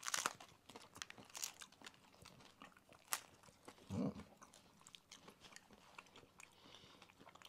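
Two people biting into and chewing crisp fried corn tostada shells, a run of sharp crunching cracks. A short low sound about four seconds in is the loudest moment.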